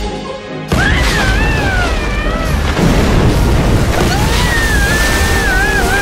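Dramatic cartoon score: a sudden boom under a second in, then wavering, sliding high melody lines over a heavy low rumble as a sea monster rises.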